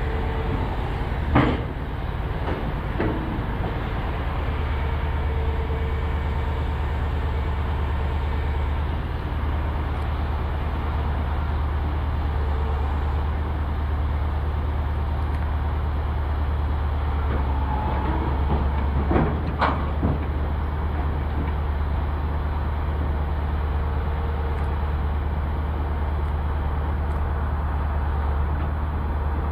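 Diesel engine of a 32-tonne UVZ tracked excavator running with a steady low drone while it is loaded onto a lowboy trailer, with sharp clanks about a second in, again near three seconds, and a few more around twenty seconds in.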